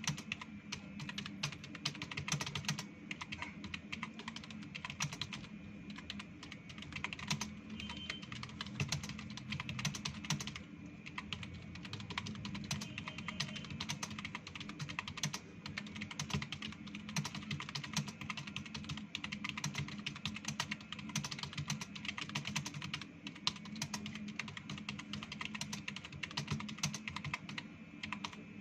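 Fast, continuous typing on a computer keyboard: a dense, unbroken run of key clicks.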